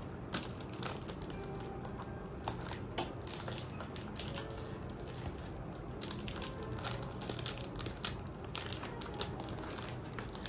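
Cardboard perfume carton being opened by hand: irregular crinkling and scratching of the packaging, with scattered small clicks as the top flap is worked loose.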